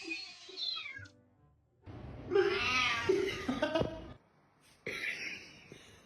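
A domestic cat meowing, with a loud, drawn-out meow that rises and falls in pitch about two seconds in.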